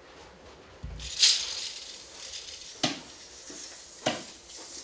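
Handling noises: a dull thump about a second in, a brief hissing scrape right after, then two sharp clicks, the second near the end.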